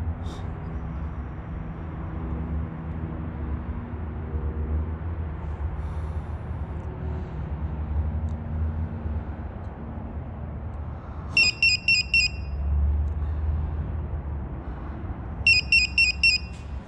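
A Mountain High two-outlet oxygen controller sounds its electronic alarm: two short trains of rapid, high-pitched beeps about four seconds apart, over a low steady rumble.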